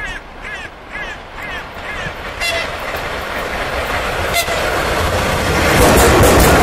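A ChS7 two-section DC electric locomotive and its passenger train approaching and passing close by, a rising rumble and rail noise that grows loudest as the locomotive goes past. The locomotive gives two short toots of its horn as a greeting to the trackside, about two and a half and four and a half seconds in. A series of five short high chirps sounds in the first two seconds.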